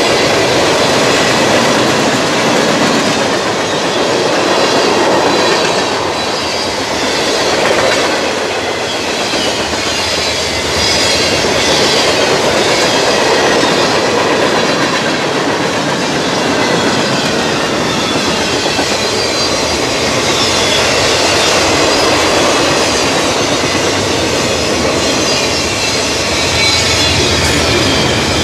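Freight cars of a long mixed freight train rolling steadily past: an even, loud rumble and clatter of steel wheels on the rails, with a faint wavering squeal from the wheels.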